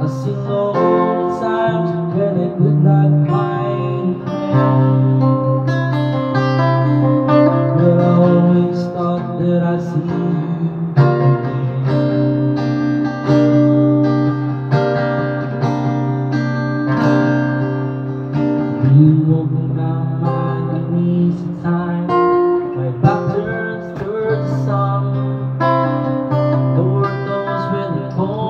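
Acoustic guitar played steadily, with a man singing along into a microphone.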